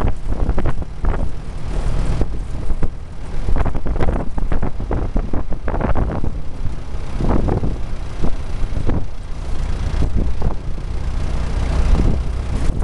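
Wind buffeting the microphone in irregular gusts over the steady low rumble of a vehicle driving along a road.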